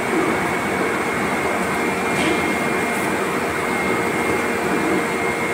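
Steady roar of heat-treatment shop machinery, with a thin steady high whine over it.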